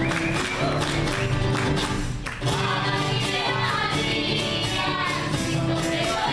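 Music with voices singing over a steady percussion beat. It dips briefly a little over two seconds in.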